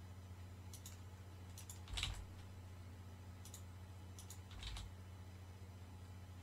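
Computer keyboard keystrokes and mouse clicks: a scattered handful of short, sharp clicks, the loudest about two seconds in, over a faint steady low hum.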